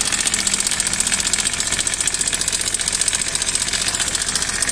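Honda Vario 110's single-cylinder four-stroke engine idling with a rapid, steady metallic ticking, like metal touching metal. The ticking is the sign of a failed cam chain tensioner that no longer holds the timing chain tight.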